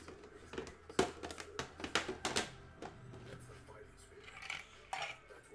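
A quick run of sharp clicks and knocks about a second in, then a few fainter ones: objects being handled and set down on a desk. Faint background music runs underneath.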